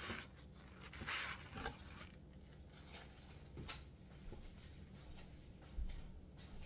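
Paper towel wiping stray shredded cheese off a hot griddle, several short rubbing strokes in the first two seconds, then a few fainter scuffs over a low steady hum.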